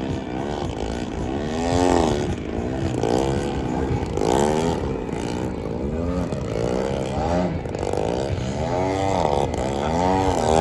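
Engine of a 114-inch Extreme Flight Slick 580 aerobatic model plane, revved up and down over and over as it flies a freestyle routine. The pitch rises and falls about once a second.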